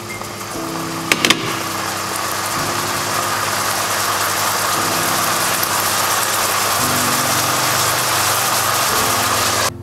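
Salmon fillets sizzling steadily in hot garlic butter in a frying pan, the sizzle growing slightly louder and cutting off suddenly near the end. A couple of sharp clicks come about a second in. Soft background music runs underneath.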